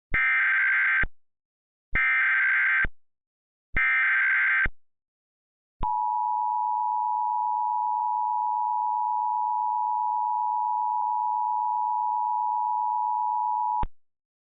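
Emergency Alert System header: three short bursts of digital data tones, each about a second long and nearly two seconds apart. Then the steady two-tone EAS attention signal sounds for about eight seconds and cuts off sharply. This sequence opens a broadcast emergency alert.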